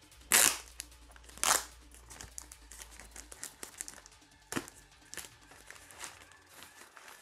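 Plastic protective bag crinkling and rustling as it is pulled off a router. There are two loud rustles in the first second and a half, then softer crackling with a few sharper rustles.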